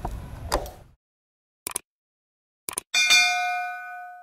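Subscribe-button sound effect: two short mouse clicks, then a loud bell ding about three seconds in that rings and fades over about a second. Before it, about a second of low noise that cuts off into silence.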